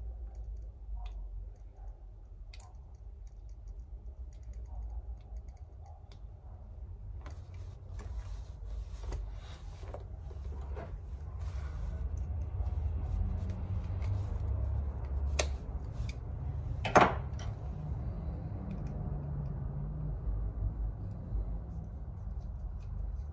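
Small metallic clicks and taps as clarinet keys and a screwdriver are handled during key fitting, over a low steady hum. One sharper click stands out about three quarters of the way in.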